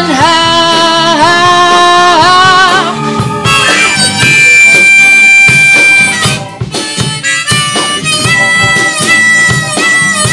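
Blues harmonica solo: bent notes in the first few seconds, then long held high notes, over a slow blues backing of acoustic guitar, electric bass, drums and keyboard.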